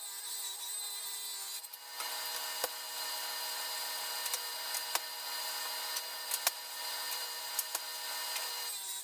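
Delta table saw running and ripping a maple board lengthwise, a steady whine with a brief dip about two seconds in and a few sharp ticks.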